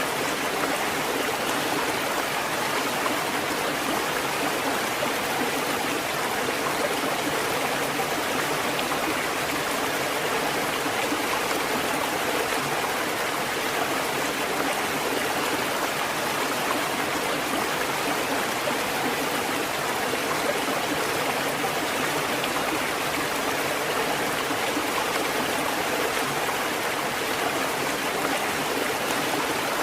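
Water fountain running, a steady unbroken flow of splashing water with no knocks or pauses.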